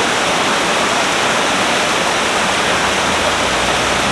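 Heavy rain falling hard, a dense, steady hiss. A low hum joins about three seconds in.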